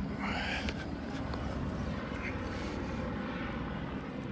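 Police helicopter circling overhead, a steady low drone of rotor and engine.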